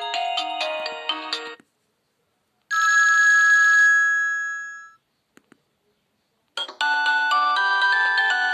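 Preloaded polyphonic ringtones on an Alcatel 20.01X mobile phone: one melody ends about a second and a half in, a single chime follows and fades over about two seconds, then after two faint clicks another melody starts.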